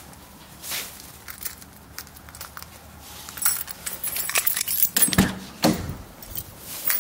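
A bunch of keys jangling and clinking, with scattered clicks that grow busier after about three seconds and a couple of dull thumps near the five-second mark.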